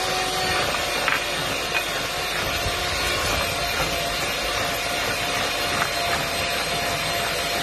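Electric hand mixer running steadily, its beaters churning through thick cake batter, with a steady motor whine.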